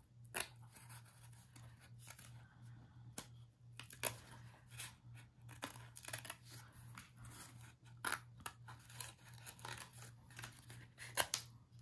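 Small craft scissors snipping around a thin die-cut paper piece: a run of quiet, uneven snips.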